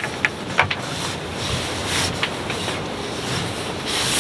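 Strong wind blowing across a sailboat's deck and buffeting the microphone, with a few sharp clicks and knocks in the first second and again around two seconds in, as lines are handled at a deck winch.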